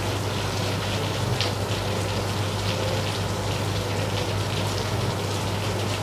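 A steady hiss, like rain, with a low hum beneath it. A few faint light clicks sound as the plastic Bluetooth MP3 module is turned over in the hands.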